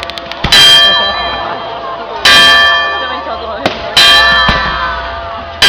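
A large bell struck about every 1.7 seconds, four strokes in all, each a loud clang that rings on and fades before the next.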